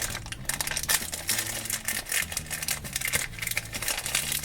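Toy packaging crinkling and rustling in the hands, with many quick, irregular small clicks.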